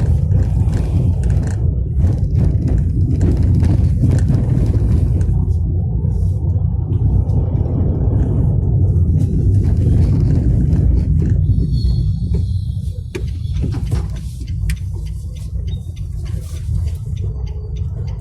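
Cabin noise inside a Tata Tiago XZ+ being driven over a rough, potholed road: a steady low rumble of engine and tyres with frequent short knocks and rattles, easing a little over the last few seconds.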